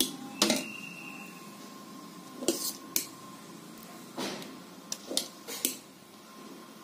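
A ladle clinking and tapping against a metal idli plate as batter is spooned into the moulds: several sharp clinks spread over about six seconds, the first ringing briefly.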